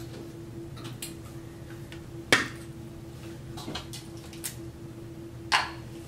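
Small makeup containers and tools being handled and set down on a hard surface: a few sharp clicks and taps, the loudest about two seconds in, over a steady low hum.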